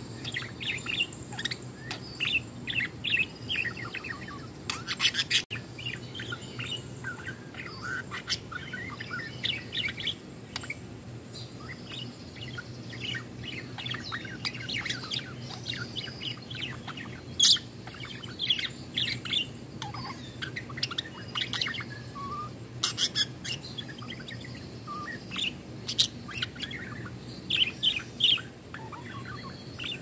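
Female budgerigar singing: a continuous rapid warble of chirps, clicks and short whistles, with a few sharper, louder notes.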